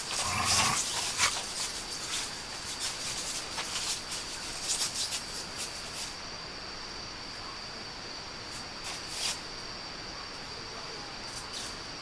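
Crickets trilling steadily, a high even chirr, while dogs shuffle and scratch about on a tent groundsheet, their rustles and clicks thick over the first half and sparse after. A brief low grunt sounds near the start.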